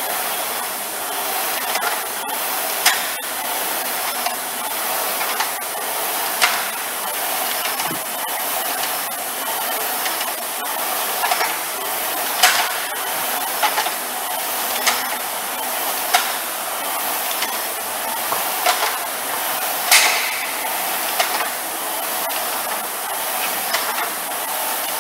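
Indoor rowing machine in use: its air-resistance fan flywheel gives a steady whooshing hiss, with a sharp click or clack on many of the strokes, about one every second or so.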